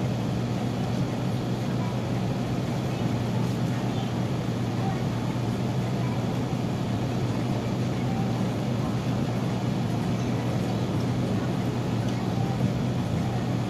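A steady low machine hum that does not change in pitch or level, with no distinct knocks or starts.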